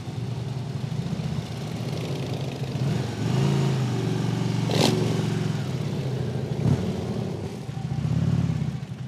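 Harley-Davidson touring motorcycle's V-twin engine running at low speed, its note rising briefly twice as the throttle opens, with other motorcycles' engines around it. A single sharp clack about halfway through.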